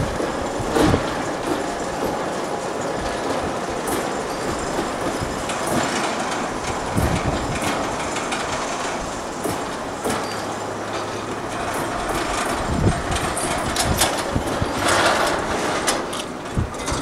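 Overhead gantry crane travelling on its rails with a hoisted bundle of sleepers: steel wheels rolling and squealing with irregular clanks and knocks.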